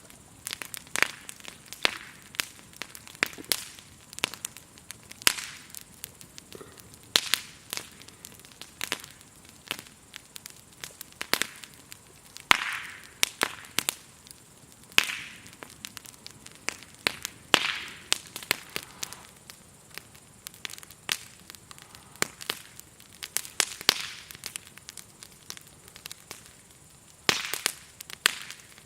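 Burning firewood in a campfire crackling, with irregular sharp pops and snaps, a few of them louder.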